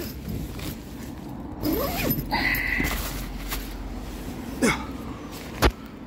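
Rustling and handling noise as a person crawls out of a small nylon hooped bivvy tent, with a few sharp knocks and clicks, the loudest a little before the end.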